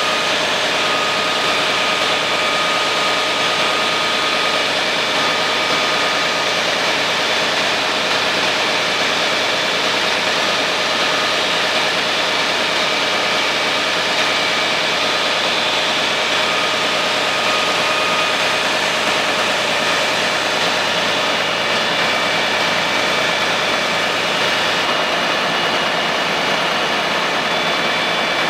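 Fire engines running steadily: a loud, even engine drone with a constant whine on top. The low rumble drops away near the end.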